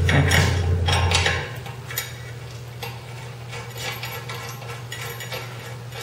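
Small metallic clicks and scrapes as a steel bolt is fitted by hand into the holes of a steel bench-grinder tool-rest bracket and threaded in. A steady low hum underneath stops about a second and a half in.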